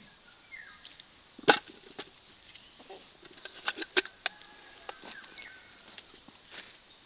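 Scattered sharp clicks and knocks, with two louder knocks about a second and a half in and about four seconds in.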